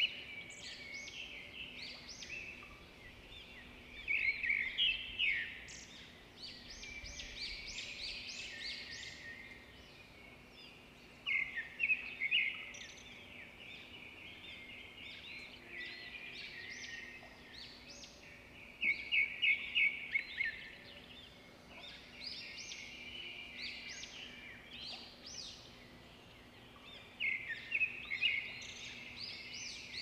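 Birds chirping and twittering, with a loud burst of fast repeated high chirps every seven or eight seconds and softer chirping in between.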